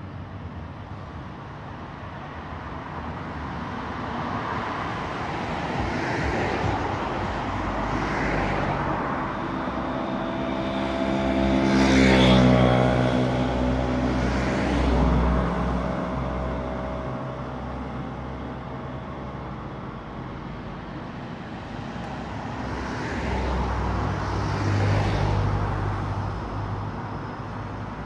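Road traffic passing close by: several vehicles go past one after another, the loudest about halfway through with its pitch dropping as it passes, and another near the end.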